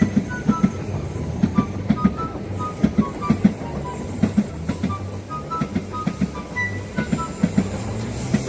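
A passing train's wheels knock over the rail joints in a steady rhythm of several knocks a second, with short high squeals scattered in between.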